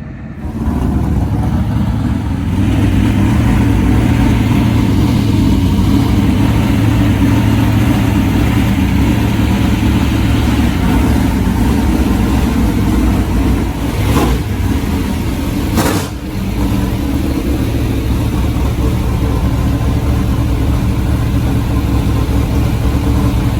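Dirt super late model race car's V8 engine running loud and fairly steady, with two brief sharp pops about two-thirds of the way through.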